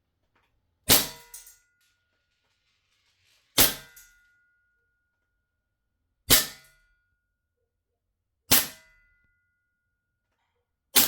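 Airsoft Desert Eagle pistol powered by green gas, its magazine heated with a heat gun, fired five times, one shot every two to three seconds. Each shot is a sharp crack followed by a brief metallic ring.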